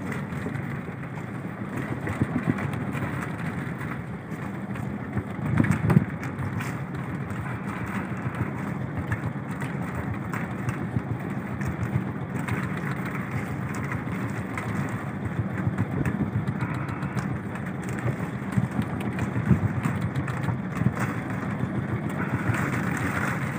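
A small fishing boat's engine running steadily under wind and sea noise, with scattered light knocks and a louder bump about six seconds in.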